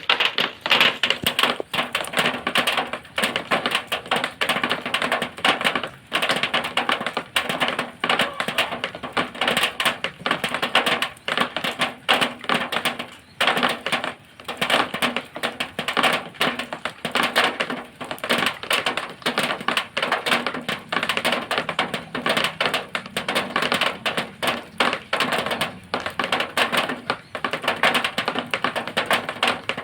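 Rainwater drops striking a zinc sheet in a dense, irregular patter of sharp metallic taps that swells and eases a little.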